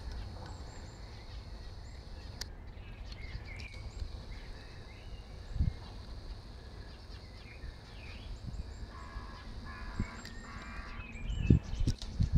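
Birds chirping and calling in the background, with a quicker run of calls about nine seconds in. Under them is a steady low rumble, and a few low thumps come midway and near the end.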